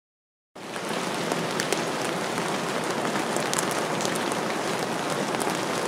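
Steady rain falling, an even hiss with scattered faint drop ticks, starting abruptly about half a second in.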